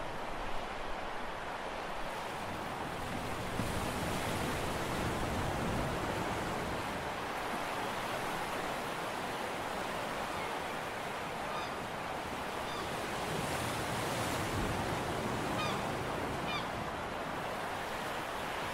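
Steady rush of sea waves and wind buffeting the microphone. A few faint, high bird calls come in over it in the second half.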